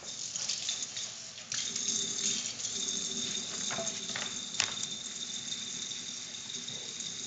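Kitchen tap running into a sink, a steady hiss, with a few clicks and the scratch of steel wool scrubbing a Bromwell steel skillet to clear label glue and factory oil residue.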